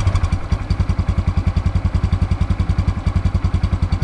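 Exhaust of a Honda 125 cc single-cylinder four-stroke motorcycle idling steadily, an even low pulse of about twelve beats a second.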